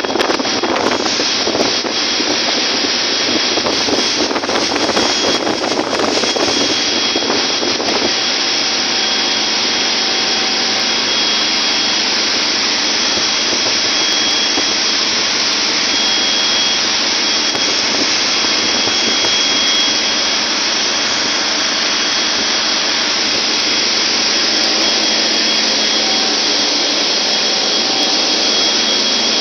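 Loud, steady machinery din of a ship's engine room in operation, with a thin steady high whine running through it.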